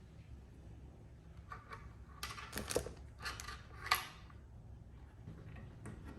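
Small hard parts being handled: a run of clicks and scrapes about two seconds in, ending in a sharp click near four seconds, over a steady low hum.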